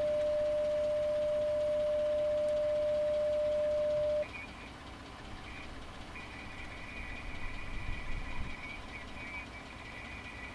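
HF mobile transceiver sounding a steady single-pitch tune tone while the Outbacker antenna is being tuned; it cuts off about four seconds in. A fainter, higher steady tone follows about two seconds later, over a low rumble.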